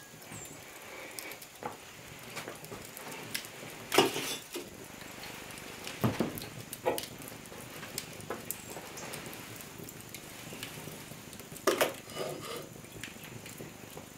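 Wood fire crackling in an open hearth, with a few sharp knocks and clunks of cast-iron cookware being handled, the loudest about four seconds in, another about two seconds later and one near the end.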